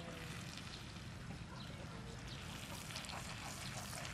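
Beaten eggs frying in a pan on a portable gas stove: a steady sizzle with crackling that gets busier about two seconds in.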